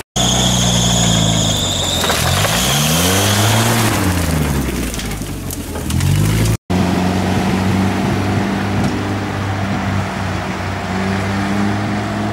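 Off-road UAZ four-wheel-drive engine revving up and down as it works through slush and mud, with a high whine over it for the first few seconds. After about six and a half seconds it runs steadily under load as the vehicle drives across ice.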